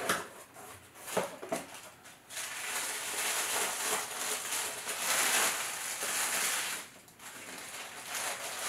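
A few light knocks as a white cardboard box lid is lifted off, then tissue paper rustling and crinkling under the hands for several seconds as it is folded back, with a short pause shortly before the end.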